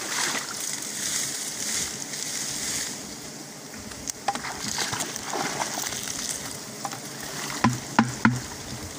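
Swarm of wild honeybees buzzing around their exposed, smoked comb: a steady hissing drone, loudest in the first three seconds. Three sharp knocks come near the end.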